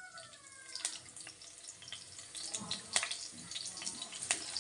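Sliced green chillies sizzling in hot oil in a pan, the sizzle growing louder, with a few clicks of a wooden spatula against the pan.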